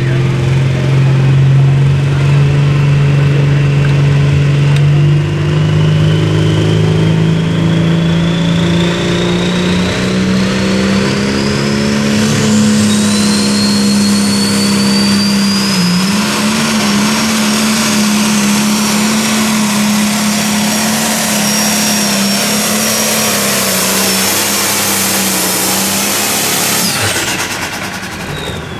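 Turbocharged diesel engine of a Limited Pro Stock pulling tractor running at full throttle through a pull. The engine note climbs gradually over the first dozen seconds while a high turbo whistle rises and then holds. The sound cuts off suddenly near the end.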